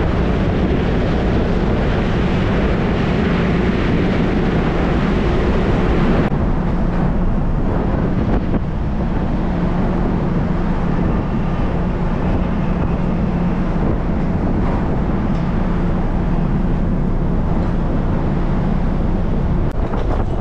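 Steady low drone of a Nankai Ferry car ferry's engines running as it berths, mixed with wind buffeting the microphone on the open deck; the upper hiss drops off suddenly about six seconds in.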